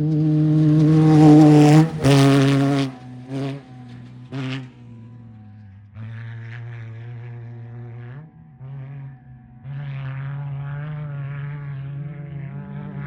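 Off-road race vehicle engine passing close at speed. It builds to its loudest about a second and a half in, shifts about two seconds in, and gives a couple of short revs before fading. Engine sound from another race vehicle grows again near the end.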